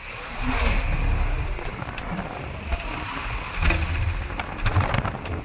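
Road vehicle passing close by: a rush of engine and tyre noise with low rumble, loudest in the first second or two.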